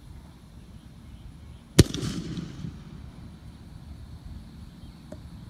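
A single sharp shot-like bang about two seconds in, typical of a blank fired as a retrieve signal in gun-dog training, with a short echo trailing off over the next second.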